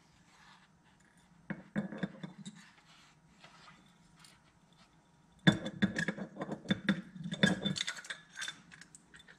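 Light metal clicks and clinks of small carburetor parts being handled as the float bowl is fitted onto the carburetor body. A few clicks come about a second and a half in, then a denser run of clicking and rattling from about five and a half seconds.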